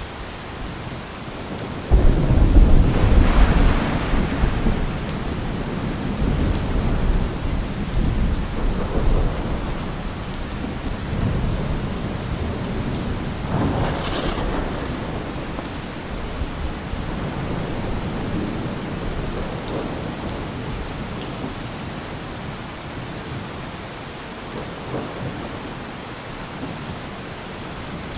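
Thunderstorm with steady heavy rain. About two seconds in a sudden loud thunderclap breaks and rumbles away over several seconds, and a second, lighter crack of thunder comes about halfway through.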